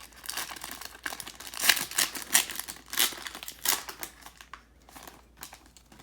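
Foil trading-card pack being torn open and its wrapper crinkled, a run of irregular crackles that is loudest in the middle and thins out near the end.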